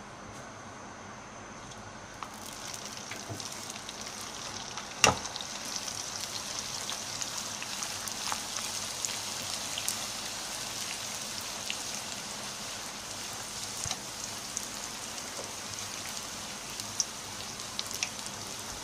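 Poori paratha dough deep-frying in hot oil in a wok: a steady sizzle that grows louder about two seconds in as the dough goes into the oil, with scattered crackles throughout. A single sharp click about five seconds in.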